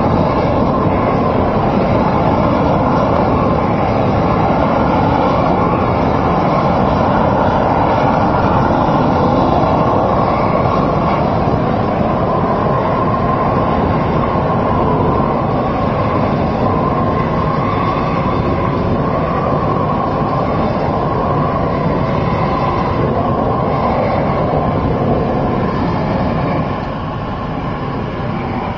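Hand-held propane torch burning steadily as it heats the asphalt for a road-marking symbol. The sound drops somewhat a couple of seconds before the end.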